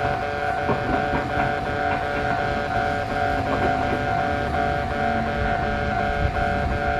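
Japanese railway level-crossing alarm sounding: a rapid, evenly repeating electronic ding with a steady ringing tone, over a low rumble.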